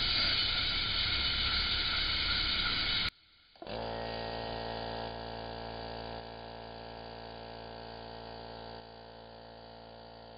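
Spark plug cleaner bead-blasting a carboned-up aircraft spark plug: a loud steady abrasive hiss that cuts off abruptly about three seconds in. A steady hum follows, getting quieter in steps.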